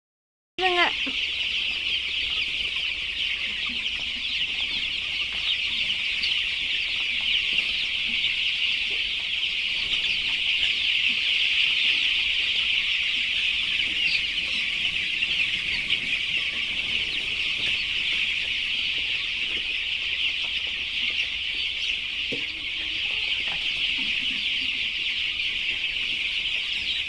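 A shed full of Giriraja and Karunkozhi (Kadaknath) chicks peeping together in a dense, continuous high-pitched chorus. It starts abruptly about half a second in and stays steady throughout.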